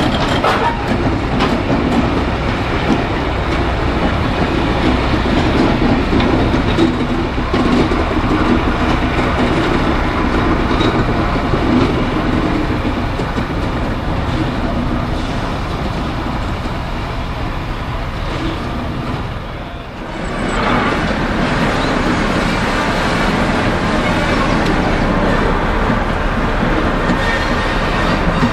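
Diesel-engined Class 73 locomotive running and moving slowly along the track, its engine working steadily under the sound of wheels on rail. The engine sound dips briefly about two-thirds of the way through, then picks up again.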